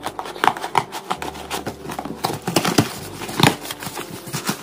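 A cardboard shipping box being opened by hand, with its tape and flaps pulled and the crumpled packing paper inside rustled. It comes as a quick, irregular run of rips, crinkles and scrapes.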